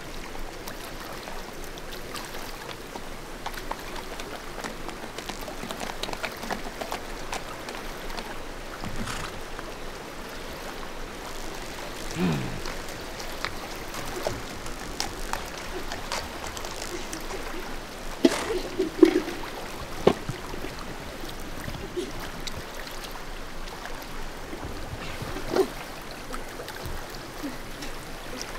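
Mountain stream running steadily, with scattered small clicks and a few brief louder sounds, the loudest cluster about two-thirds of the way through.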